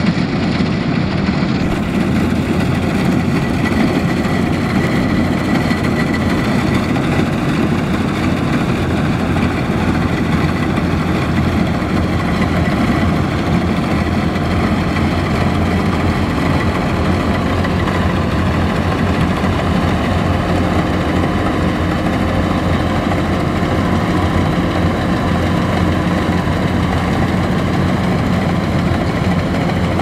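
Kubota DC-105X combine harvester's diesel engine running steadily while the machine cuts rice, with a faint high whine from its machinery.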